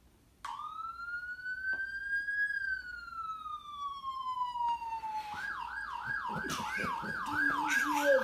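A siren that starts abruptly: one long wail that rises, then slowly falls, then switches about five seconds in to a fast yelp of roughly three warbles a second.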